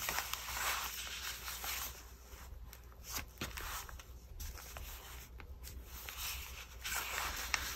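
Quiet rustling and sliding of paper as journal pages and a loose card are turned and smoothed by hand, with a few light taps and clicks.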